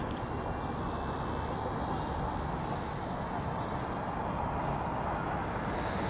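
Steady, even hum of distant road traffic, with no distinct events.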